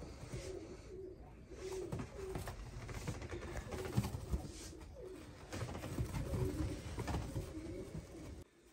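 Domestic pigeons cooing, short low coos repeating again and again.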